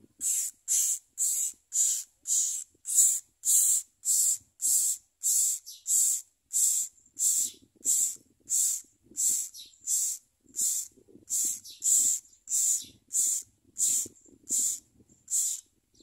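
Common myna nestlings begging: a steady run of short, harsh, hissing calls, nearly two a second.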